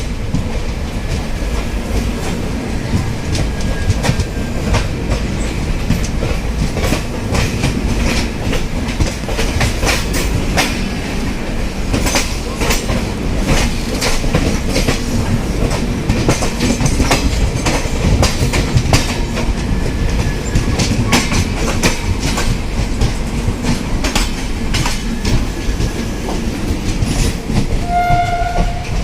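Express train's coaches running over rail joints and points: a steady rumble with irregular clickety-clack of the wheels. A short high tone sounds near the end.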